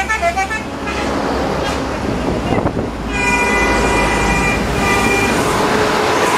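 A bus's telolet multi-tone air horn: the last stepped notes of a tune at the start, then the deep drone of the diesel bus passing, then the horn held as a steady chord from about halfway through, broken briefly before a second short blast.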